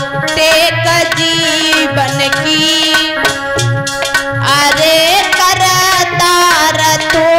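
Live Hindi devotional bhajan: a woman singing over a regular hand-drum beat and held keyboard notes.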